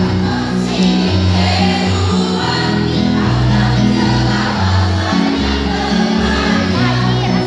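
Mixed choir of men and women singing together over a musical accompaniment, with a bass line stepping from note to note.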